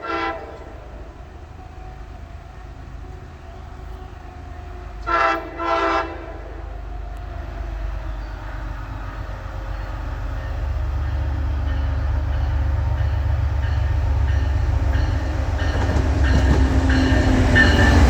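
MBTA MPI HSP46 diesel-electric locomotive sounding its horn: a brief chord at the very start, then two short blasts about five seconds in. Its low rumble and wheel noise then grow steadily louder as the train approaches.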